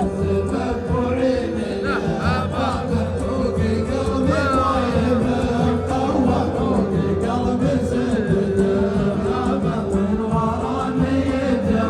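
A group of voices chanting a song together over music, the sung line wavering in pitch above a steady low accompaniment.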